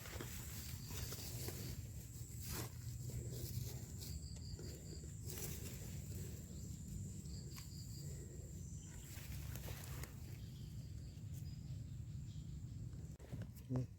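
Footsteps and rustling outdoors, with a steady high-pitched drone and a few short trains of high chirps. The drone stops near the end, just before one loud knock.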